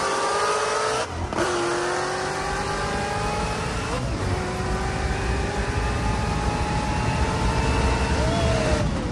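A high-horsepower V8 car accelerating flat out through the gears. The engine note climbs steadily in each gear and drops sharply at upshifts about a second in, about four seconds in and near the end.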